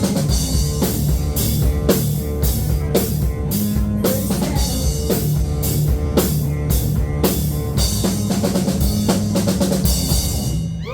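Live rock band playing, the drum kit loudest: bass drum and snare hits with crashing cymbals over a steady bass line. The song stops abruptly near the end.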